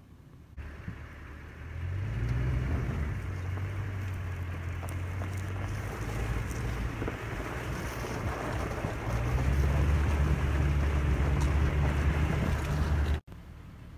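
Wind blowing across the microphone: a heavy low rumble with a rushing hiss, stronger in the second half, cutting off sharply near the end.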